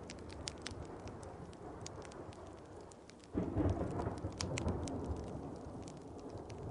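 Steady rain with scattered sharp crackles, and a roll of thunder that breaks in suddenly about halfway through, then rumbles on and slowly fades.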